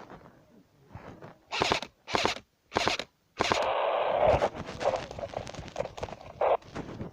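Airsoft gunfire: three short bursts in quick succession, then a longer stretch of noise lasting about a second.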